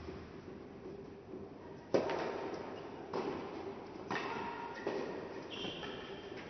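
Tennis ball struck back and forth in a doubles rally: four sharp pocks about a second apart, the first the loudest, each ringing on in an indoor tennis hall. Short high squeaks come near the end.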